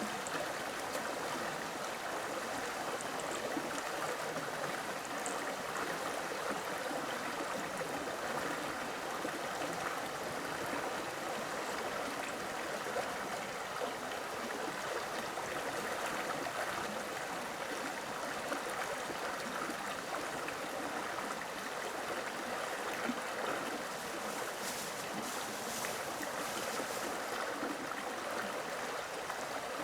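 Steady rush of running water, an even sound with no breaks.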